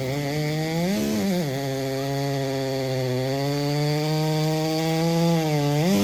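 Racing chainsaw of the 90cc-and-under class, a single-cylinder two-stroke, running flat out under load as it cuts through a log. Its engine note dips and recovers about a second in, holds steady, then climbs sharply near the end as the load comes off.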